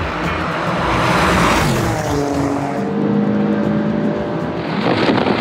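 Mercedes-AMG G-class with its 4.0 twin-turbo V8 and Alfa Romeo Stelvio Quadrifoglio with its 2.9 twin-turbo V6, accelerating hard side by side in a drag race. A rush of engine and tyre noise builds to a peak about a second and a half in, then settles into a steady engine note that drifts slightly lower.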